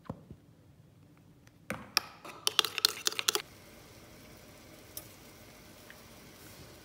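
A quick run of sharp clinks from metal kitchen utensils, lasting under two seconds. Then the steady hiss of water boiling under a stainless steel steamer basket, with one light click of the tongs about five seconds in.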